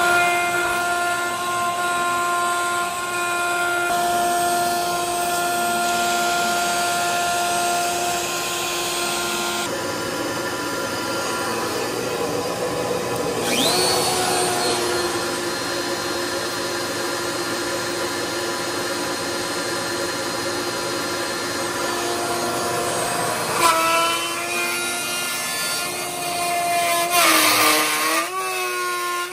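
CNC machine cutting metal: a steady, multi-tone spindle whine over a noisy cutting sound. The pitch slides up about halfway through and wavers and shifts several times near the end.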